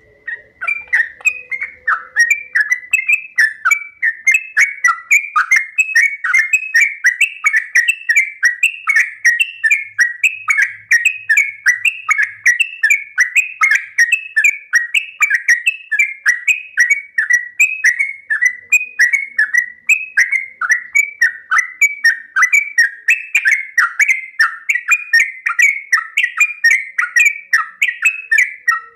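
Sooty-headed bulbul (trucuk) singing a long, unbroken 'ropel' song: short, bright gliding notes repeated rapidly, about three a second, without a pause.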